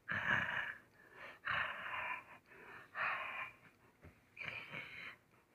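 Dog breathing noisily while being petted: four wheezy breaths, evenly spaced about a second and a half apart.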